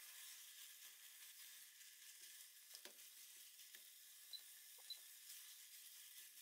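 Faint sizzling of plant-based breakfast sausage frying in a small saucepan, with a few soft ticks and scrapes from a silicone spatula stirring it.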